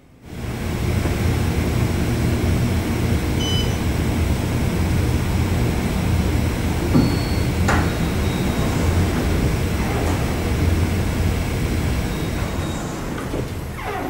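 Otis Series 5 elevator arriving: a steady low rumble, a brief high chime about three and a half seconds in, then the doors sliding open with a sharp click near the middle. The rumble eases off near the end.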